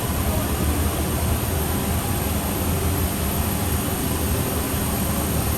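Steady cabin noise inside a military aircraft in flight: a constant engine and airflow drone, a deep rumble underneath and a thin high whine on top, with no change in level.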